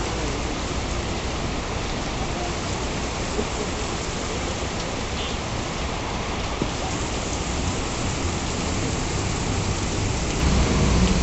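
Heavy rain pouring onto a flooded paved road, a steady dense hiss. Near the end a louder low rumble joins it.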